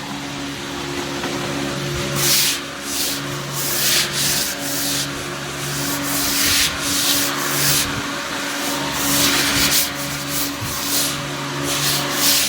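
Repeated rubbing and scraping strokes on a car tyre's tread, about a dozen over several seconds, as the tread is felt and searched for embedded stones or wire. A steady machine hum runs underneath.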